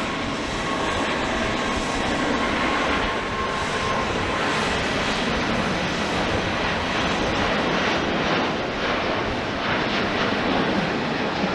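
Jet noise from an Airbus A350-900's Rolls-Royce Trent XWB turbofans: a steady, loud rush with a thin whine that fades out about four seconds in.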